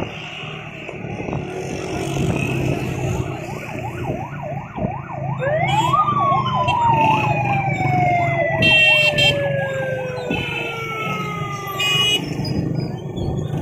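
Siren sounding in busy street traffic: a fast up-and-down warble, then a wail that rises sharply about five seconds in and slowly falls away. A motorbike engine hums steadily underneath.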